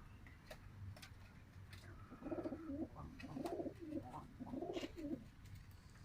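Domestic pigeon cooing: three throbbing coos from about two seconds in, with light scattered clicks.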